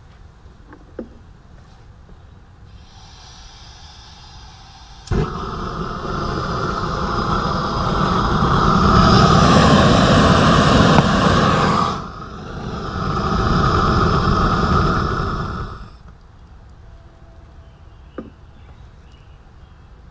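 Propane torch flame burning loudly: a hiss starts, a sharp pop comes about five seconds in, and then a rough flame sound builds to its loudest. It dips briefly, swells again, and then cuts off suddenly.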